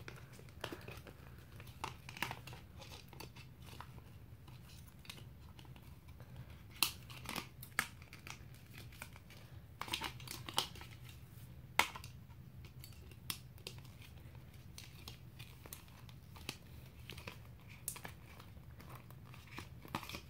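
Plastic packaging crinkling and rustling as it is handled, with scattered sharp clicks and snaps, a few louder ones in the middle, over a faint steady low hum.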